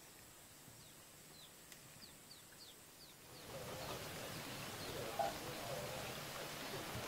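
Small birds chirping in a quiet rural setting, short high descending chirps repeated several times. About three seconds in, the background turns louder into a steady outdoor hiss with a couple of brief lower calls.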